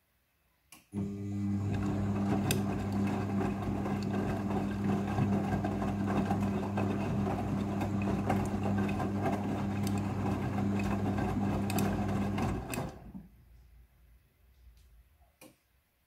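Midea front-loading washing machine turning its drum during the rinse cycle: a click, then the drum motor's steady hum with the wet laundry tumbling for about eleven seconds. It stops abruptly about three-quarters of the way in, followed by a few faint knocks as the drum comes to rest.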